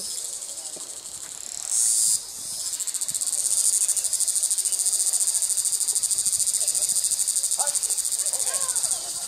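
Cicada calling: two short buzzes in the first couple of seconds, then a long, loud, fast-pulsing buzz that holds steady and drops away near the end.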